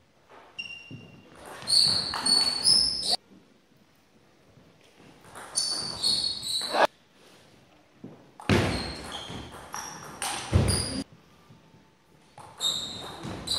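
Table tennis rally: the ball clicking off the paddles and the table, with short shoe squeaks on the wooden floor. It comes in several stretches of a few seconds with silent gaps between them.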